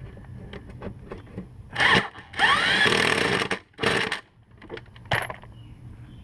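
Power drill run in three short bursts about two seconds in, the middle one the longest with its pitch sweeping, amid lighter clicks and knocks of work on the mower's parts.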